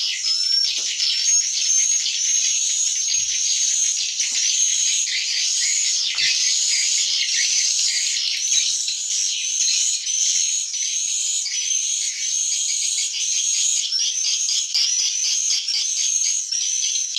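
Dense chorus of swiftlet chirps, many short high twitters overlapping without a break: the 'suara inap' roosting call used in swiftlet farming.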